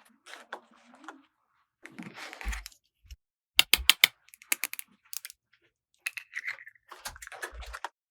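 Small plastic toy pieces being handled: a run of sharp clicks and taps, with short bursts of rustling in between.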